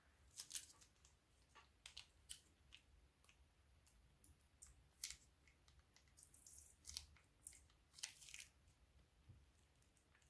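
Faint, scattered crisp clicks and crackles, about a dozen over ten seconds, from crunchy slime and its materials being handled.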